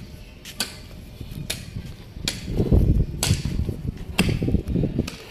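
Pickaxe striking hard, stony garden soil about once a second, each blow a sharp knock followed by the dull thud of earth breaking loose.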